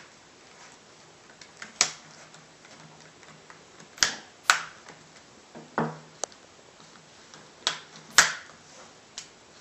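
Plastic screen bezel of an Acer Aspire One D260 netbook being pressed back onto the lid, its clips snapping into place. About eight sharp snaps come at uneven intervals.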